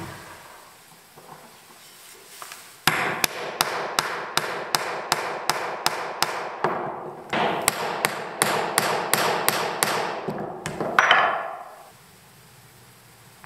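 Hammer striking a steel grommet-setting tool to flare a brass grommet into canvas, with about three blows a second in two runs separated by a short pause.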